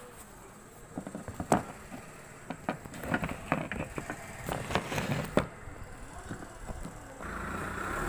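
Scattered clicks and knocks of a mixer grinder's hard plastic body and parts being handled and gripped by hand. A steady rushing noise starts near the end.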